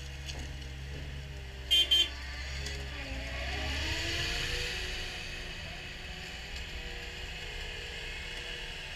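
Cat 279D compact track loader's diesel engine running as the machine drives off, with two short beeps close together about two seconds in. Its note rises around three to four seconds in, then the low rumble fades as it moves away.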